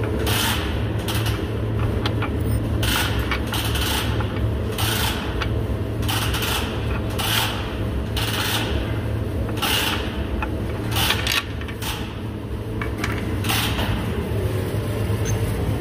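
Spider gears being worked out of a Ford 8.8 differential carrier: short metallic scrapes and clinks, roughly one a second, over a steady low hum.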